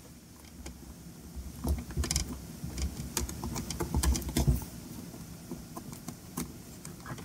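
Screwdriver working a stubborn screw loose inside a sheet-metal power supply case: scattered small clicks and scrapes of the tool on the screw and metal, over a low rumble of hands handling the unit.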